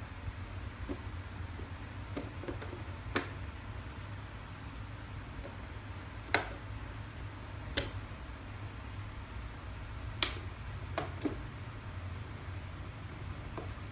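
Electric RC rock crawler truck at work off-road: about seven scattered sharp knocks and clicks, the loudest a little past the middle, over a low steady rumble.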